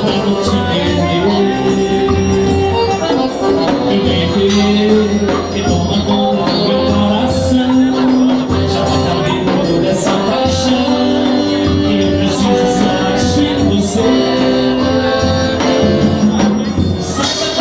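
Live band playing dance music: a steady bass line and sustained melody notes over percussion, with a sharp high cymbal-like stroke every so often.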